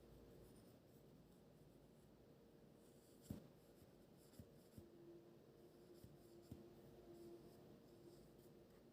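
Very faint scratching of a pen writing on paper, with a few light taps, the loudest about three seconds in.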